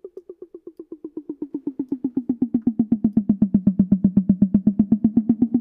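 A drum-machine tom hit repeated rapidly, about nine strikes a second, automated in pitch, pan and volume with concert-hall reverb. Quieter and higher at first, it drops in pitch and grows louder over the next few seconds, as if swinging in closer on a circular path around the listener.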